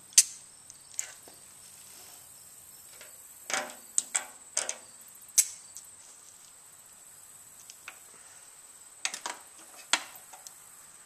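Scattered sharp clicks and clunks of small hand tools and bolts on a motorcycle's frame and bodywork while the tank and seat fasteners are worked on. The loudest click comes just after the start, and there are clusters of knocks midway and near the end, over a faint steady high whine.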